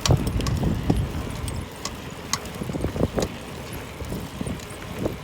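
Bicycle bottom bracket giving irregular sharp clicks and knocks over a low rumble of riding, the sign of its bearings breaking up.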